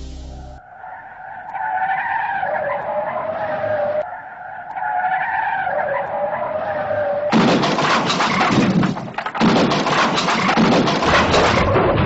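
Car tyres screeching twice, each screech about three seconds long and sliding slowly down in pitch. Then, from about seven seconds in, a loud car crash: crunching metal and shattering noise that runs on, dropping out briefly once.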